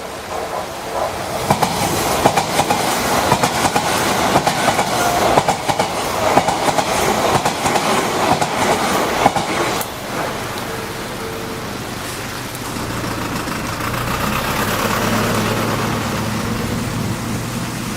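An Odakyu Line electric train passing over a level crossing. Its wheels clatter loudly over the rail joints for about eight seconds, drowning out the evenly pulsing crossing bell, which comes through again briefly once the train has gone by. A lower, steadier hum follows, rising slightly in pitch.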